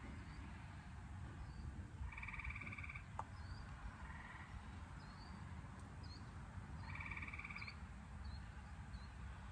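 A frog calling twice, each a short rapid pulsed trill under a second long, about five seconds apart, faint against a low steady outdoor background.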